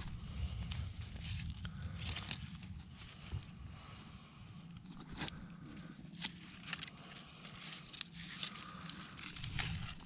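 Rustling, scraping and crackling of mulch and soil being dug through by hand as plant roots and runners are pulled out, with a few sharp crackles and a low rumble underneath.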